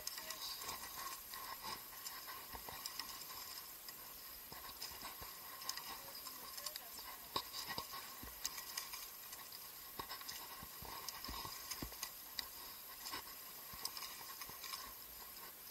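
Irregular light pattering and clicks over a faint steady hiss, from a rowing eight under way on the water.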